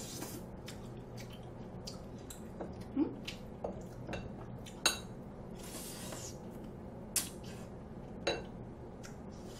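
A spoon and chopsticks clinking and tapping against a metal bowl while eating, a few separate light clicks spread out, with a short soft rushing noise about six seconds in.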